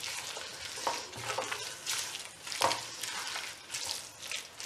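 Silicone spatula stirring and scraping chopped tomatoes and a green chili-ginger-garlic paste around a non-stick pan, in several uneven strokes, while the mixture sizzles in ghee.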